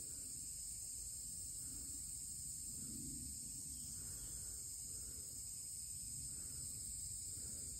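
Steady, high-pitched drone of a summer insect chorus. Fainter, lower calls repeat about once a second beneath it.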